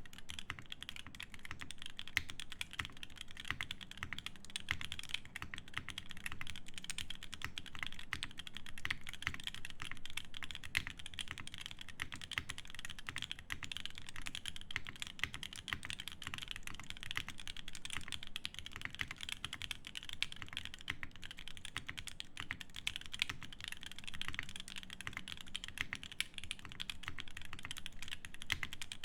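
Continuous fast typing on a Portal custom mechanical keyboard with lubed H1 switches, an FR4 plate and GMK doubleshot ABS keycaps: a dense, steady stream of keystrokes.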